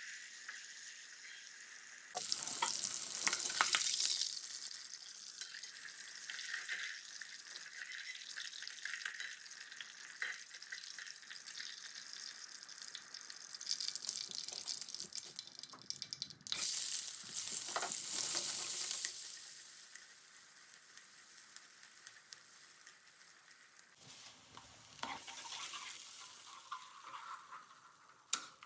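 Food sizzling in hot oil in a pan while being stirred, the sizzle swelling loudly about two seconds in and again around seventeen seconds. A sharp click near the end.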